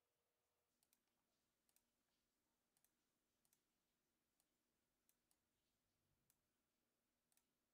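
Faint clicks of a Logitech MX Master 3 mouse's buttons, about nine clicks or quick double clicks at irregular intervals, against near silence.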